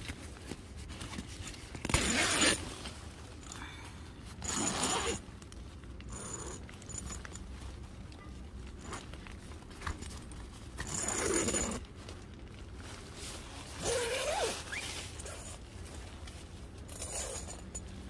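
Tent door zipper being run along its track in five short rasping strokes, each under a second. The slider has just been pinched tighter with pliers so that it closes the teeth again.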